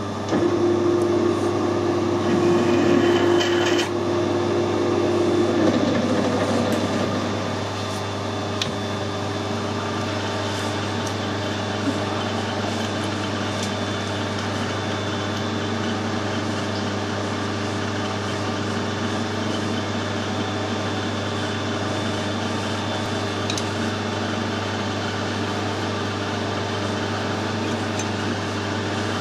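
Metal lathe counterboring a small part with a twist drill: a steady whine from the cut for the first five or six seconds over the machine's steady hum, which runs on evenly once the drill stops cutting.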